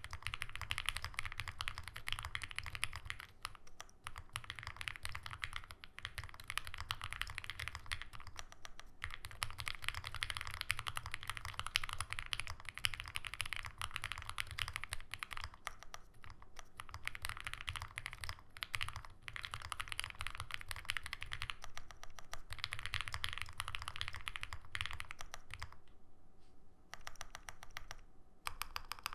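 Continuous fast typing on an Owlab Spring mechanical keyboard with lubed 43 Studio OPBlack switches on an aluminum full plate, GMK Modern Dolch 2 keycaps, and plate foam plus PE foam. The keystrokes come in runs of a few seconds with brief pauses, and there is a longer lull near the end before a short last run.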